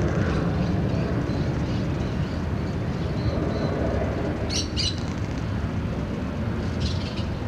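Outdoor park ambience: a steady low rumble with faint scattered bird chirps, and short harsh bird squawks twice, about four and a half seconds in and near the end.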